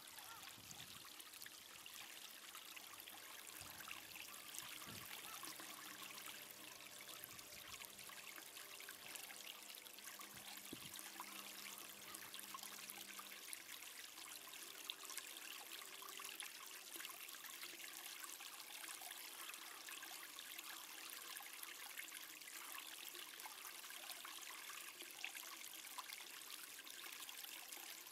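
Faint steady hiss of outdoor background noise, close to silence, with a faint low hum in the first half.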